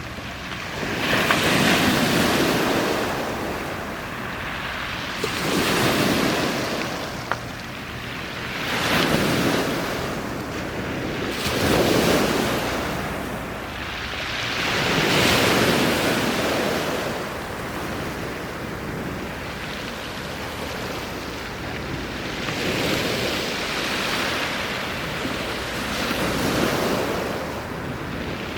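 Sea waves breaking on a beach, the surf swelling and falling away every three to four seconds.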